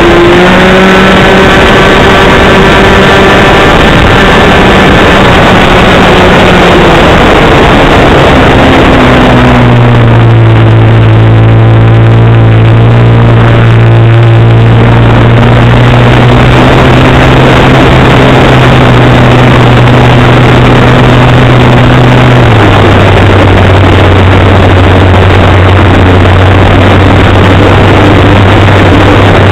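RC model airplane's engine heard from a camera mounted on the plane, running loud with a rush of air noise. Its pitch drops about eight seconds in as the engine slows, and steps lower again about two-thirds of the way through.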